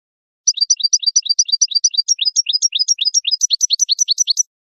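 European goldfinch singing: a fast run of high twittering notes, changing about a second and a half in to a rapid series of downward-slurred notes, then stopping abruptly near the end.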